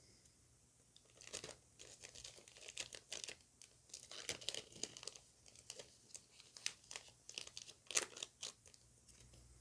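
Foil Pokémon booster pack wrapper crinkling in the hands, a quiet run of irregular crackles as cards are handled and slid back into the opened pack.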